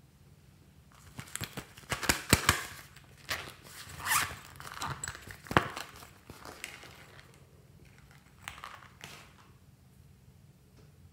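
Zippered pencil case with a clear plastic front being handled: crinkling and rustling, the zip opened and the contents rummaged through, with sharp clicks about two and five and a half seconds in. A shorter, quieter rustle comes near the end.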